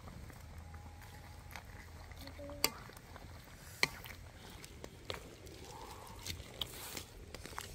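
A wooden spatula stirring large prawns in a metal wok of simmering soup over a wood fire, with scattered sharp clicks and knocks; two louder knocks come near the middle.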